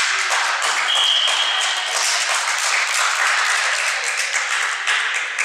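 Spectators and players in a sports hall clapping and cheering as a volleyball rally ends, with a brief high whistle about a second in. The clapping starts abruptly, holds for about five seconds and then dies away.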